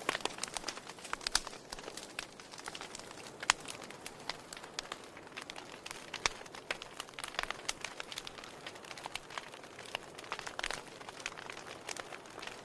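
Wood fire burning in a fireplace: logs crackling and popping irregularly over a soft steady hiss, with one sharper pop about three and a half seconds in.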